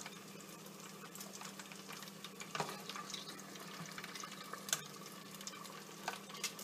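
Breaded walleye frying in a pot of hot oil, a steady crackling sizzle over a low hum, with a few sharp clicks of metal tongs against the pot as the golden-brown, floating pieces are lifted out.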